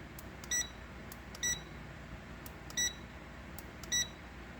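Digital multimeter beeping its auto power-off warning: four short, high beeps about a second or so apart.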